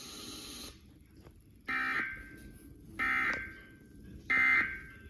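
Emergency Alert System end-of-message data tones coming over a TV speaker: three short, harsh digital bursts about 1.3 seconds apart, signalling that the alert broadcast is over.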